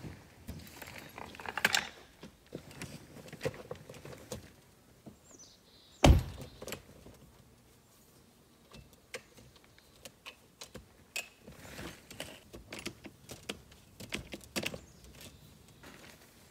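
Clicks, knocks and rattles of a hard-shell rooftop tent being unlatched and unfolded on a car roof, with its telescoping ladder being put out. One sharp, loud thump comes about six seconds in.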